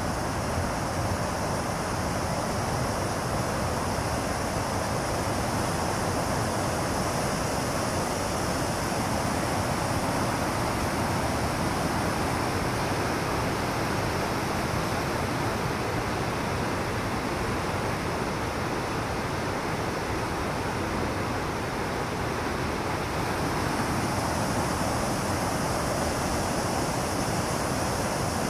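Large river weir in high flow: water rushing through the open weir gates and tumbling down the apron as white water, a steady, even rush with no let-up.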